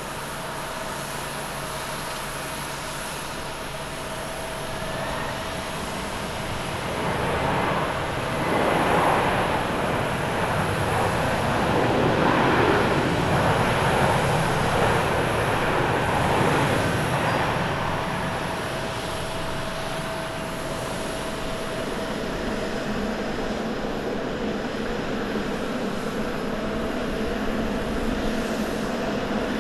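Boeing 767 jet engines on the landing roll just after touchdown. The sound swells about seven seconds in to a loud, wide roar, typical of reverse thrust, that holds for around ten seconds and then eases back to a lower steady jet noise.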